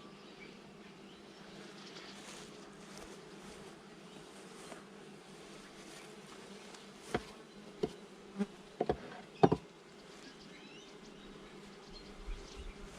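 Honey bees buzzing as a steady hum around an opened hive. Roughly halfway through comes a run of about six sharp knocks over a few seconds, the loudest near the end of the run.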